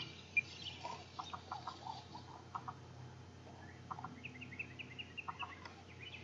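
Faint bird calls: scattered short chirps, often in pairs, and a quick run of rising chirps about four to five and a half seconds in, over a faint steady low hum.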